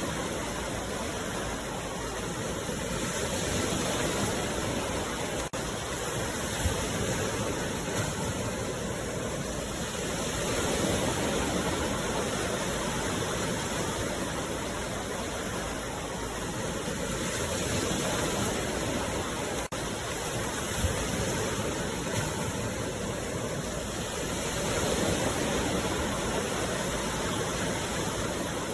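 Ocean surf: waves breaking and washing ashore in a continuous hiss that swells and eases about every seven seconds.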